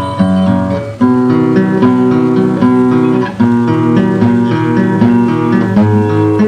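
Background music: a plucked acoustic guitar playing a melody of clear, separate notes over a steady bass line.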